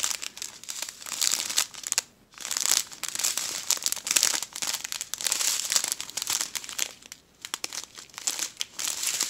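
Strip of small clear plastic bags holding diamond painting drills crinkling as it is handled and flipped through: dense, irregular crackling, with two brief lulls.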